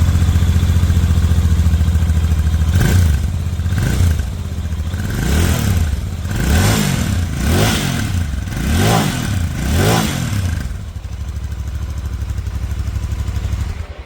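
Royal Enfield Interceptor 650's 648 cc parallel-twin engine on its stock exhaust, idling steadily, then blipped about seven times in a row with the revs rising and falling each time, then settling back to idle.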